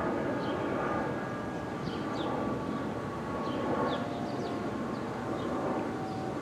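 Outdoor warning siren sounding a faint, steady alert tone, several steady pitches held with slight wavering, over a louder low rumble.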